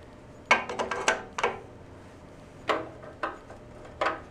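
A steel wrench clinking against metal parts of a Kohler K-series engine as it is worked toward a 7/16 nut on the ignition coil. The clicks are short and sharp with a brief ring, several close together in the first second and a half and a few single ones later.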